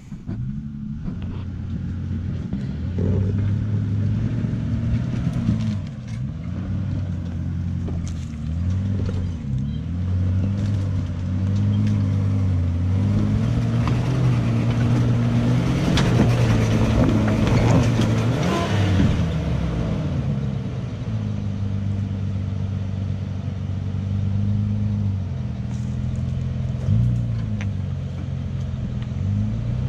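Four-wheel-drive vehicle's engine working a rough off-road climb, its revs rising and falling again and again, with a louder, harsher stretch about halfway through.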